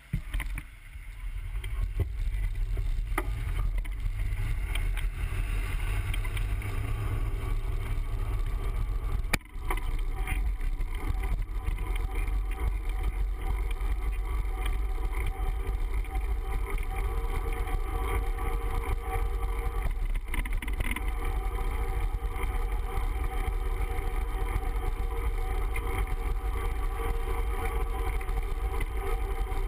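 Wind buffeting the microphone of a bicycle-mounted camera while riding along a road, a steady low rumble with road noise. It builds up in the first couple of seconds as the bike gets going and drops out briefly about nine seconds in.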